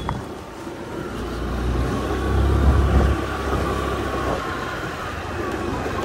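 A motor vehicle on the road: a low rumble swells about a second and a half in, peaks near three seconds and fades away by about four seconds, over steady traffic-like background noise.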